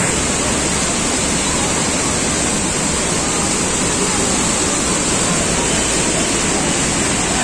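A river in flood: a torrent of muddy water rushing loudly and steadily.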